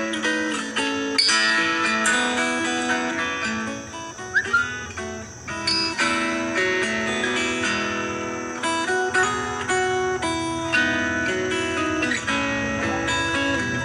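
Background music of plucked and strummed acoustic guitar, with notes following one another steadily.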